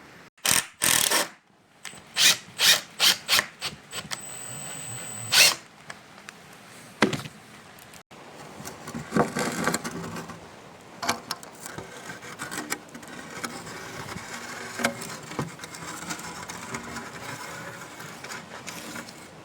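Cordless drill driving a screw into the tip of a wooden roof batten, in a run of short pulses and one longer spin with a thin high whine. After that, softer scraping and rubbing of the wooden batten with scattered knocks.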